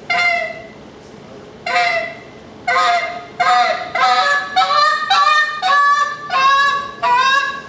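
Handheld goose call blown by a competition caller, imitating Canada goose honks: a few single honks spaced about a second apart, then a quick run of honks, each breaking from a low note to a higher one.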